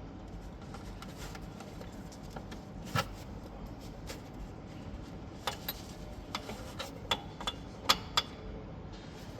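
Scattered light metallic clicks and knocks, about seven spread over several seconds, from hand tools and metal parts being handled while a UTV starter motor is fitted into the engine. They sit over a steady low background noise.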